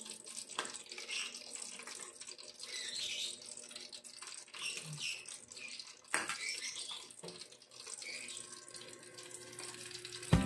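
Cauliflower fritters frying in hot oil in a pot, a steady sizzle, with a few light clinks of a metal spoon against a ceramic bowl.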